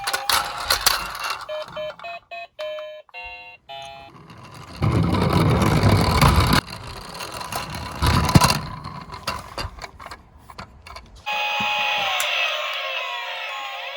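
Toy police car's electronic siren and sound effects: a run of short beeps a couple of seconds in, a loud rushing noise for a couple of seconds in the middle, and a wailing siren that rises and falls over the last few seconds.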